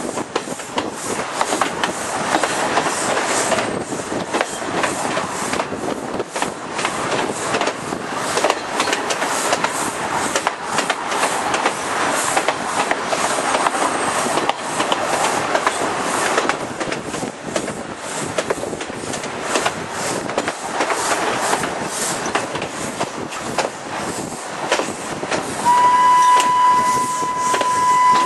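Train running at speed, heard from a coach window: a steady dense rush with the clatter of wheels over the rails. Near the end the steam locomotive's whistle blows one steady note for about two and a half seconds.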